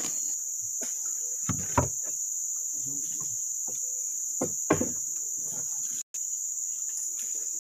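Steady high-pitched drone of insects in the riverbank forest, with a few dull knocks from the wooden boat being bumped, in pairs near two seconds and five seconds in.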